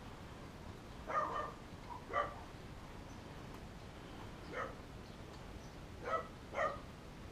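A dog barking in the background: about five short barks, two close together near the start and three more spaced out after.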